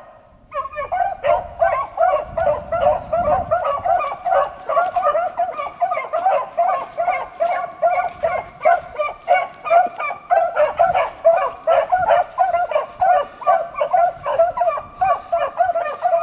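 Pack of beagles baying in chorus as they run a rabbit's track: a rapid, unbroken stream of overlapping hound barks that starts about half a second in.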